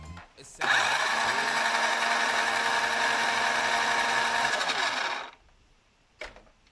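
Small electric motor of a kids' electric car driving its plastic reduction gearbox and wheel, run unloaded for a test. It starts abruptly about half a second in, runs at a steady whine and winds down after about five seconds.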